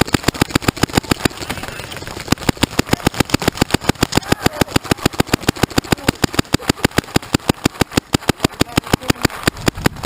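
Paintball markers firing in rapid streams, about ten shots a second, with a brief lull about a second and a half in.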